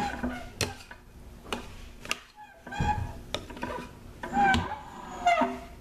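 A spoon scraping and knocking against the inside of a ceramic slow-cooker crock as thick soap batter is scooped out. The scrapes and knocks come irregularly, with a few short squeaks.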